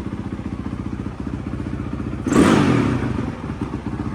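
Honda 450 four-stroke single-cylinder dirt bike engine idling steadily and fast with the choke off, a sign that the cleared pilot jet is now feeding it; the idle is set too high. About two seconds in there is a brief, louder rush of noise.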